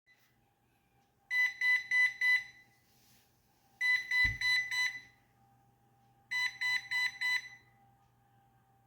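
Coredy robot vacuum sounding its error alert: three rounds of four short, high electronic beeps, about two and a half seconds apart. Four beeps with a solid red light is its error code for a main rolling brush that cannot turn.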